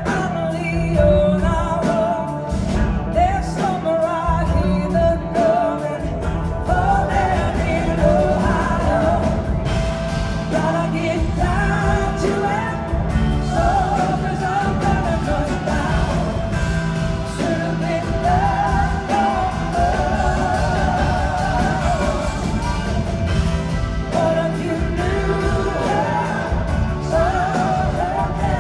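Live blues-rock band playing loud and continuous, recorded from the audience. A lead melody bends and wavers in pitch over a steady bass and drums.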